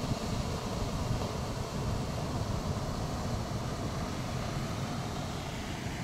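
Steady rushing of a high waterfall in heavy flow, plunging into the pool below, with a deep rumble.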